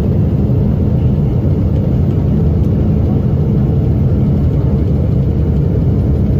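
Steady, loud low rumble of engine and airflow heard inside the cabin of a Boeing 777 in flight. The engine beside the window has failed, with its inlet cowling torn away and a fire burning in its core.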